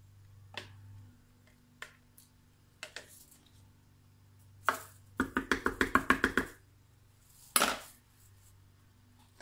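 A spatula knocking and scraping inside a plastic measuring pitcher, getting thick soap batter out. Scattered light taps, then a quick run of about ten knocks just past halfway, and one louder knock near the end.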